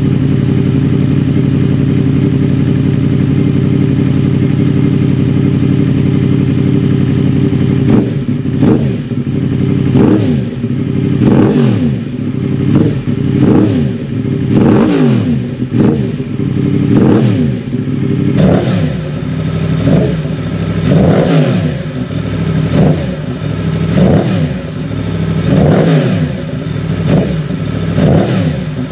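2020 Yamaha MT-10's crossplane inline-four, breathing through an Arrow decat mid-pipe and end can, idles steadily, then is blipped over and over. From about eight seconds in come a dozen-plus quick revs, rising and falling, each a second or so apart.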